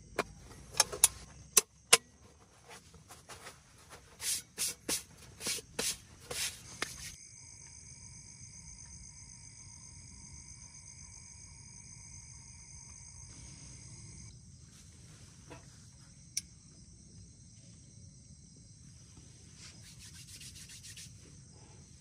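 A few sharp clicks, then a quick run of about eight short scraping strokes. After that comes a steady high-pitched insect drone.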